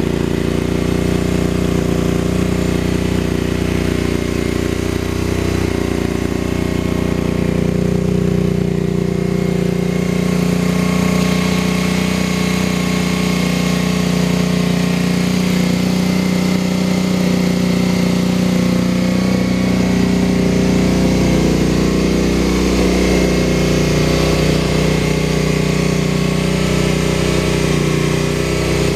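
A tube-frame buggy's engine, uprated to about 67 hp, idling steadily.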